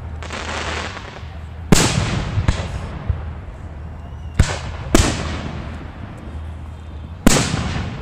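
Aerial fireworks shells bursting: four loud bangs, one a little under two seconds in, two close together around the middle and one near the end, each trailing off in a long fading rumble, with a few smaller pops between them.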